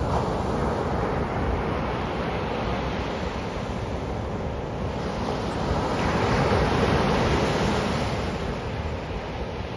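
Sea surf: waves breaking and their wash running up a sandy beach in a continuous rush. The surf swells to its loudest about two-thirds of the way through.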